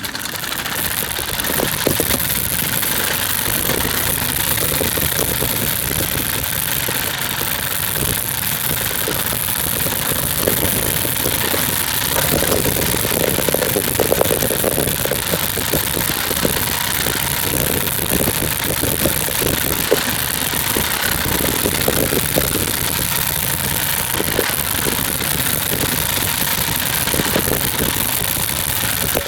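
100cc four-stroke moped scooter engine idling steadily.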